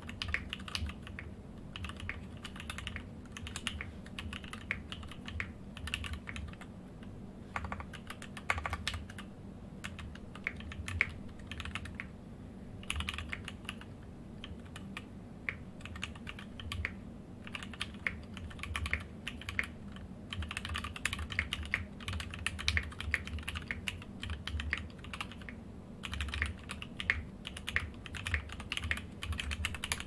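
Typing on an Eclipse FRL mechanical keyboard fitted with a POM plate and Mekanisk Ultramarine switches: quick, continuous keystrokes in runs, with a few short pauses.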